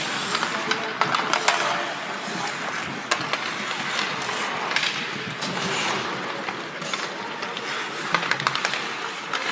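Ice hockey play: skates scraping the ice and irregular sharp clacks of sticks and puck over a steady rink noise.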